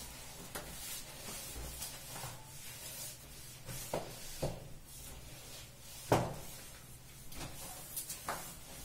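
A floor cloth on a broom being wiped over a wet tiled floor to dry it, scraping and knocking at irregular moments. The loudest knock comes about six seconds in, with smaller ones near four and eight seconds.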